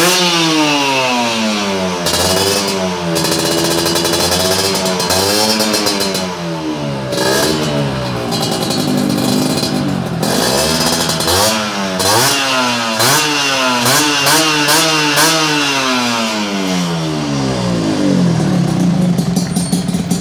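Two-stroke Yamaha Touch 125 motorcycle engine breathing through an aftermarket expansion-chamber exhaust, revved again and again, its pitch climbing and falling with each blip of the throttle, then settling back towards idle near the end.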